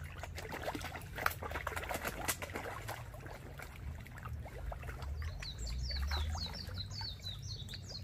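Carp splashing at the water's surface as they crowd in for food, a steady run of small splashes and sloshing. About five seconds in, a bird starts a fast series of short, high, falling chirps, several a second.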